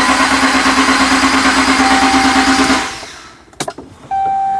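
The 5.7 Hemi V8 is being cranked over by the starter with a fast, even pulsing and does not start, a crank no-start caused by the ASD relay never switching on. The cranking stops a little under three seconds in. A couple of clicks follow, then a steady electronic chime tone near the end.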